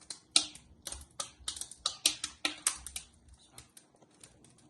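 Burning firewood crackling in a fireplace: sharp, irregular snaps, thick for the first three seconds or so and sparser near the end.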